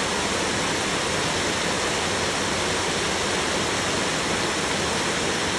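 Heavy rain falling steadily on a roof: an even, unbroken hiss with no separate drops standing out.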